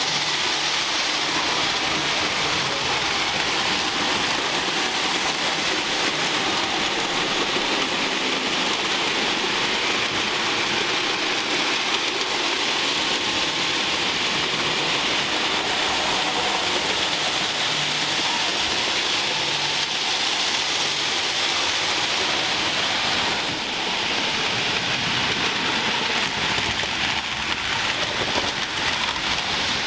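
Model trains running on the layout's track: a steady whirring hiss of small wheels and motors on the rails, without a break.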